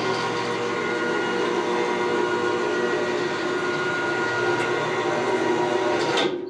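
Homemade elevator's electric drive running as the platform lowers, a steady mechanical whine of several held tones over a rushing hiss, stopping abruptly near the end.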